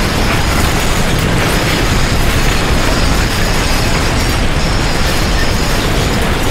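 Continuous loud rumbling and rattling of violent earthquake shaking, with no break or change in level.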